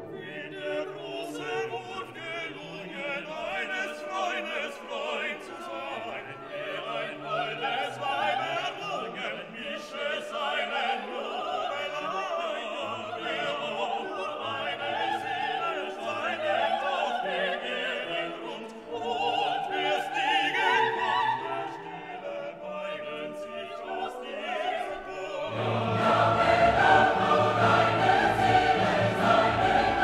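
Background classical music with operatic singing over orchestra; it swells louder and fuller, with deeper bass, in the last few seconds.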